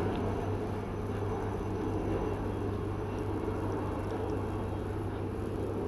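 Steady low hum with an even hiss and no distinct events: constant room or appliance noise.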